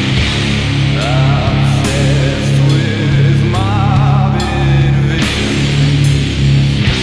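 Doom metal band playing: slow, heavy distorted guitars and bass holding low chords under a cymbal wash, with a wavering higher melody line over them.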